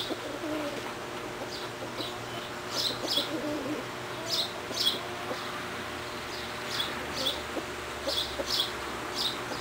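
Chickens clucking quietly, with short high chirps that often come in pairs.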